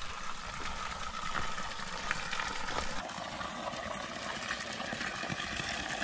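Spring water trickling down a small rocky streambed, then, from about halfway through, a closer, brighter stream of water pouring from a wooden spout and splashing onto the ground.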